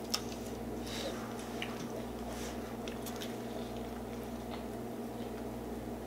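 A person biting into and chewing a chicken sandwich, faint soft chewing and small ticks over a steady low hum. A single sharp click just after the start, as the sandwich is lifted from its paper wrapper.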